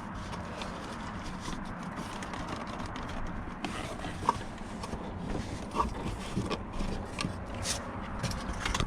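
Scattered light clicks, knocks and scrapes of hands and tools working at a car's interior plastic trim, over a steady low background noise; the knocks come irregularly from about three and a half seconds in.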